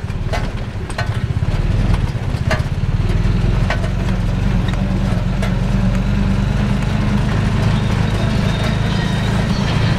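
Mototaxi's small motorcycle engine running steadily under way, heard from inside the cab, with a few sharp knocks or rattles in the first few seconds.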